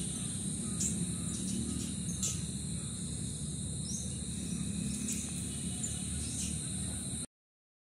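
Steady high-pitched insect drone with short bird chirps scattered through it over a low rumble; the sound cuts off suddenly near the end.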